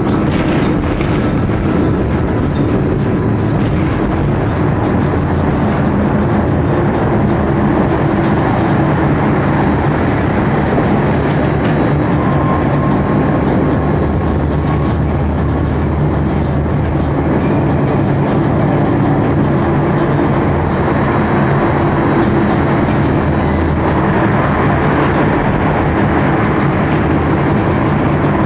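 Tram running along its track, heard from inside the car: a steady rumble of wheels on rail with a low hum and occasional faint clicks.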